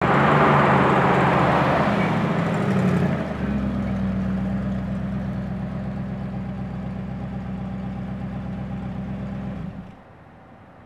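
A 1960s Ford Falcon sedan pulling into a parking space. Its engine and tyres are loudest for the first few seconds, then the engine settles to a steady idle and is switched off, cutting out suddenly about a second before the end.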